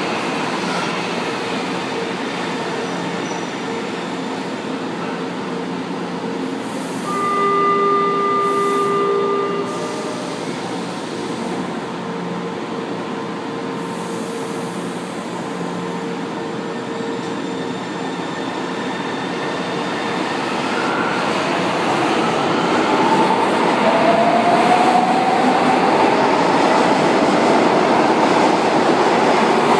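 São Paulo Metro Line 2 trains running through an underground station: a steady rumble of cars rolling past the platform. About a quarter of the way in, a buzzing tone sounds for about two seconds. In the second half the noise builds as a train accelerates out into the tunnel, its motors whining upward in pitch.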